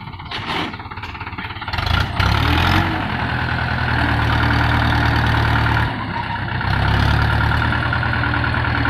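Mahindra 575 DI tractor's four-cylinder diesel engine working hard, pulling a loaded trailer through sand. It comes up to high revs about two seconds in and holds there. It eases off for a moment around the middle, then pulls hard again.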